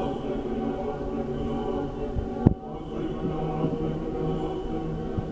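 Orthodox church choir chanting in sustained, held tones. A single sharp click cuts in about two and a half seconds in.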